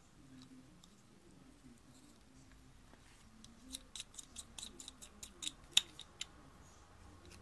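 A quick run of light clicks and ticks, about fifteen over three seconds and starting about halfway through, as a binocular neck strap is threaded through the strap lug on the binocular body. One click near the end is louder than the rest.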